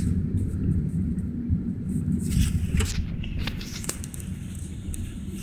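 Car engine and road rumble heard from inside the cabin while driving, dropping in level about three and a half seconds in, with a few light clicks.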